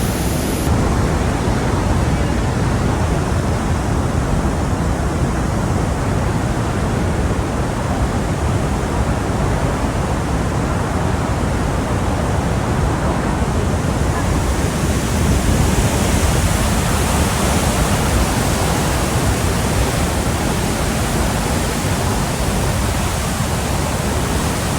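Murchison Falls heard close from above: a steady, dense rush of water plunging through the gorge, deepest at the low end, with no break.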